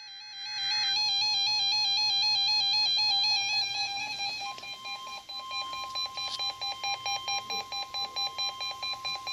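RadioShack 12-258 weather radio's built-in alarm sounding a warbling high-pitched tone, triggered by a National Weather Service warning alarm test. From about three seconds in it pulses rapidly, about three times a second. About halfway through, the broadcast's steady 1050 Hz weather radio warning tone joins it.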